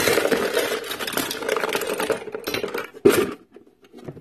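Plastic toy tools clattering as they are piled into a box of plastic toys: a dense rattle for about two seconds, then a few scattered clicks and a last knock about three seconds in.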